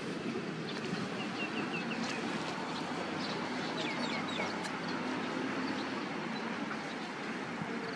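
Birds chirping outdoors: short, thin, falling chirps in quick series, about a second in and again around four seconds, over a steady background hiss.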